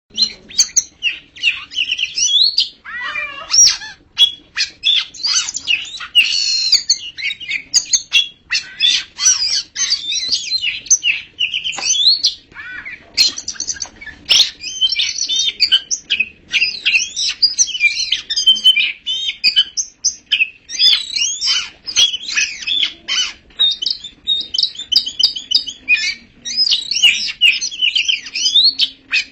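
Oriental magpie-robin singing an unbroken run of fast, varied high whistles, trills and chattering phrases, with a few lower sweeping notes about three seconds in.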